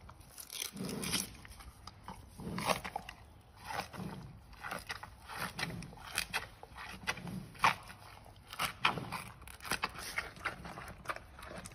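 Giant panda chewing bamboo: an irregular run of crunches and sharp splintering cracks as the woody stalks are bitten and ground, with soft low thuds of chewing between them.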